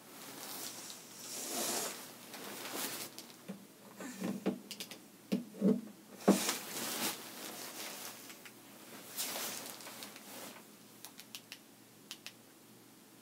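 Rustling and handling noise with scattered clicks and knocks, the loudest knock about halfway through, then a few small ticks near the end.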